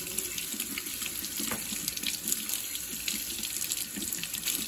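Kitchen tap running into a stainless steel sink, the stream splashing over the coffee grinder's top burr carrier and the hands rinsing it: a steady rush of water.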